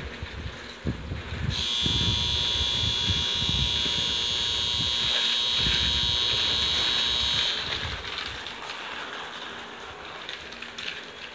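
Station platform warning buzzer for an approaching train, sounding one steady electronic tone. It starts about a second and a half in and stops about six seconds later.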